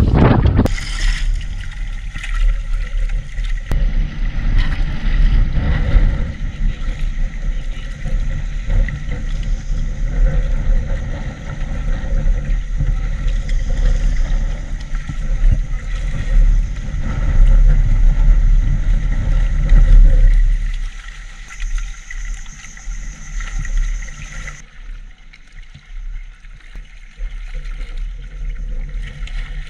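Outrigger boat's engine running steadily under heavy wind and water noise; about twenty seconds in the engine and rumble drop away, leaving quieter water sounds.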